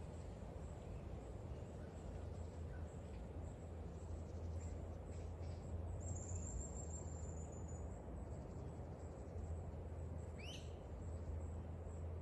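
Garden ambience. A steady low rumble runs under faint, high, evenly pulsing insect chirping. A thin bird call about six seconds in slides slightly down in pitch, and a quick rising bird call comes about ten seconds in.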